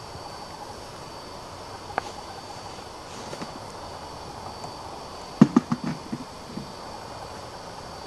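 Quiet night-time hiss with a faint steady high tone, a single click about two seconds in, and a quick run of half a dozen soft thuds about five and a half seconds in from the person carrying the camcorder as they move through the grass.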